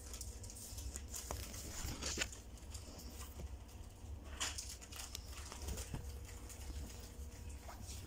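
Paper timetable leaflets rustling and crinkling as they are handled and shuffled, with sharper crackles about two seconds in and again around four and a half seconds.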